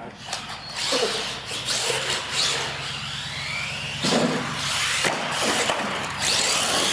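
Radio-controlled monster truck's electric motor and gears whining, rising and falling in pitch with the throttle, with a few sharp knocks from the truck hitting the floor or ramps, about a second in and again around four and five seconds in.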